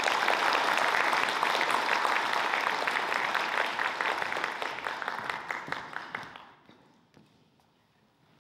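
Audience applauding, a dense clapping that dies away about six and a half seconds in.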